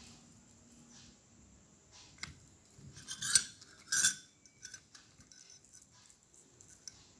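Handling of a plate: two short clattering scrapes, about three and four seconds in, among faint rustling as fried battered tofu is pulled apart by hand.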